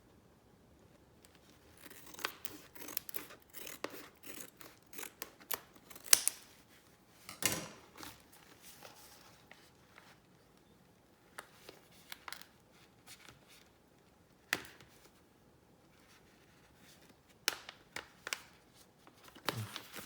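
Keyboard PCB being unpacked: a run of sharp snips, crinkles and tearing of packaging, busiest in the first third, with a longer tearing sweep near the middle, then scattered handling clicks.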